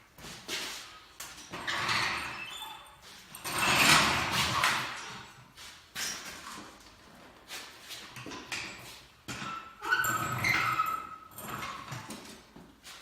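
Irregular knocks, clunks and scraping from equipment being moved and handled, with a louder scraping rush about four seconds in and a short squeak around ten seconds.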